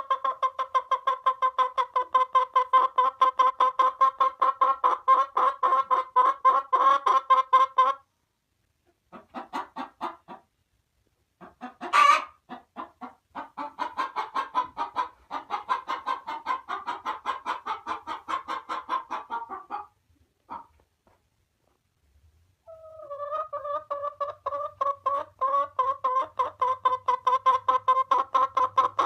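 Chicken clucking in long runs of rapid, evenly spaced clucks. The clucking breaks off briefly twice, with a short rising squawk near the middle.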